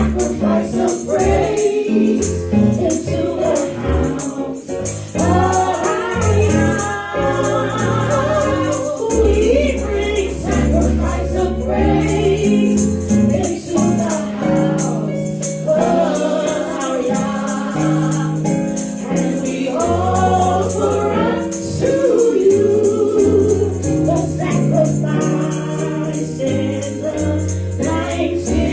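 Gospel worship song: several voices singing a praise song together over a band with a steady bass line and hand percussion keeping time.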